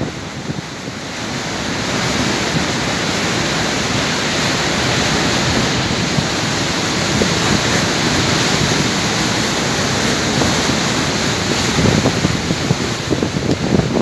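Heavy storm surf breaking against the rocks in a steady, loud roar that swells about a second or two in, with gale-force wind buffeting the microphone, gustier near the end.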